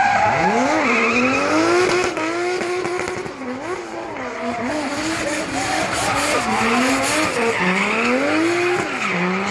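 Heavily tuned, turbocharged Toyota Supra doing donuts: the engine revs climb and drop again and again as the throttle is worked, with the rear tyres spinning and squealing on the tarmac.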